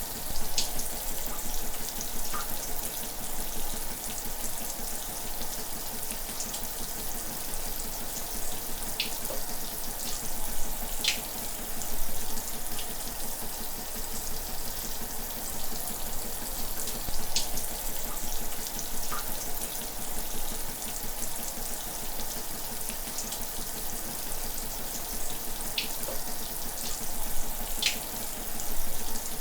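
Shower running: a steady hiss of water spraying and falling, with occasional brief splashes and drips.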